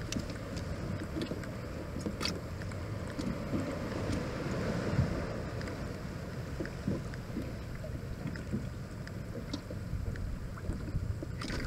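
Water lapping and splashing against a fishing kayak's hull, with wind buffeting the microphone and scattered light knocks.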